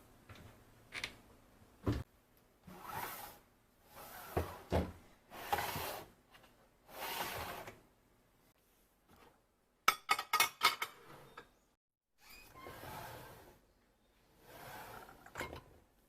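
Household handling sounds: a string of short rubbing or sliding noises, with a quick run of small sharp clicks or clinks about ten seconds in.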